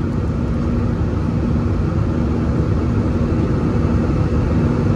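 Cabin noise inside an Airbus A320-216 in its climb: the steady rush of its CFM56 engines and the airflow, with a steady low hum running through it.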